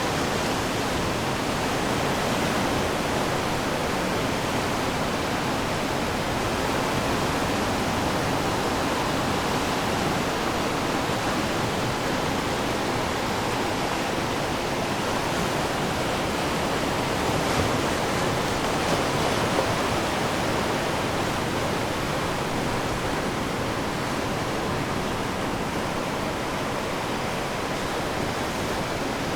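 Ocean surf washing onto the shore in a steady, unbroken rush, swelling slightly a little past the middle.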